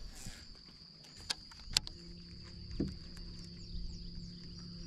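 Quiet sounds from a small fishing boat during a cast and retrieve: two sharp clicks about a second and a half in, then a steady low hum from about two seconds in. A thin, steady high whine runs under it all.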